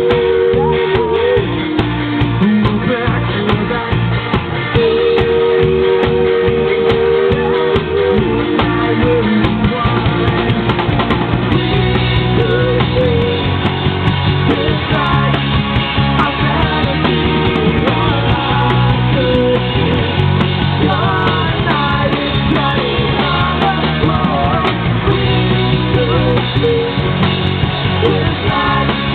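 Live rock band playing with electric guitars, bass and drums, recorded from the audience; a lead melody line runs over the steady beat.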